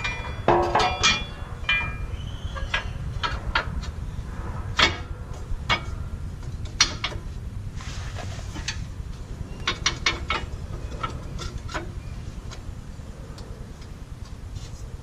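Irregular metallic clinks and knocks of steel parts and hand tools as a track bar bracket is fitted to the axle. There is a cluster of ringing metal clinks about half a second in, then scattered sharper knocks.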